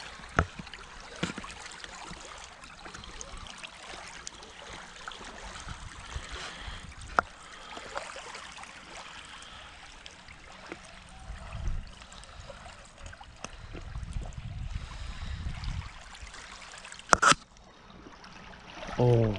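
Small waves lapping and trickling over a pebble lake shore, with scattered small clicks. A brief loud crackle sounds about seventeen seconds in.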